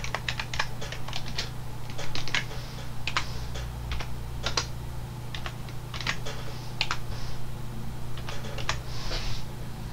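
Typing on a computer keyboard: irregular keystrokes, single and in quick little runs with short pauses between them, over a steady low hum.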